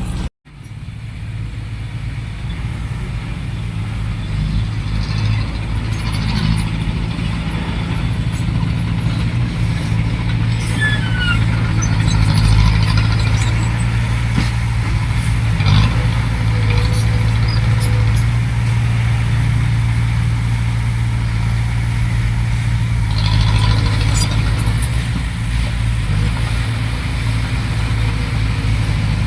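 Heavy machinery's diesel engine running steadily with a low drone, growing gradually louder over the first several seconds after a momentary dropout at the start.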